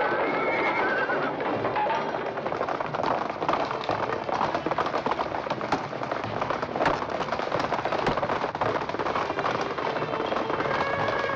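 Cavalry horses galloping and neighing amid a dense clatter of knocks and crashes, with a few high, curving cries near the start and again near the end.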